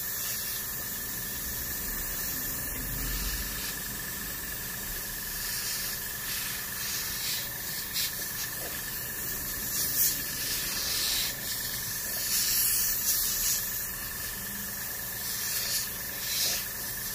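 Gravity-feed airbrush hissing with compressed air, with several louder surges of spray lasting about a second each as the trigger is pressed.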